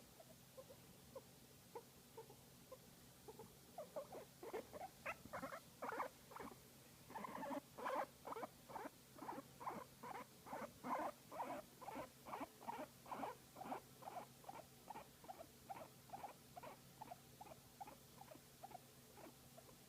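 Guinea pig making a long run of short, soft calls, about two or three a second, faint at first, louder from about four seconds in and tapering off near the end: its contented sound while being massaged.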